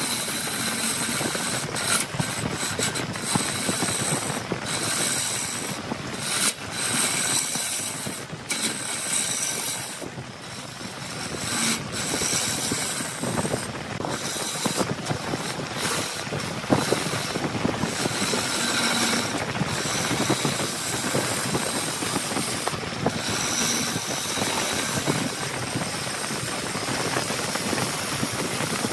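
Wood lathe running while a turning tool cuts the spinning wood: a continuous scraping cutting noise that drops out briefly again and again as the tool lifts off and goes back in.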